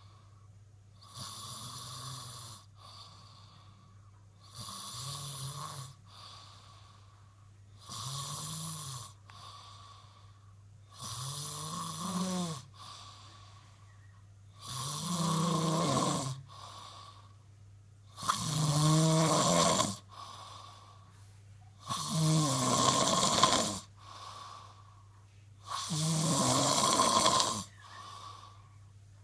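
A person snoring in a steady rhythm, about one snore every three and a half seconds, with the snores growing louder as it goes and a softer breath between them.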